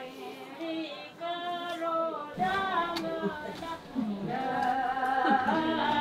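Background music: a song sung by a woman's voice, in slow held notes.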